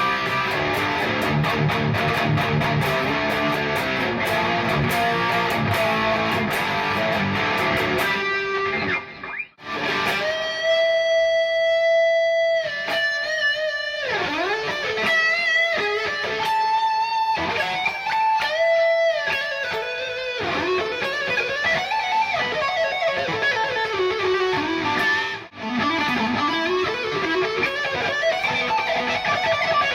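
PRS SE CE 24 electric guitar playing a lead: a fast run of picked notes, a short pause about nine seconds in, then long held notes with string bends and slides, with another brief break near the end.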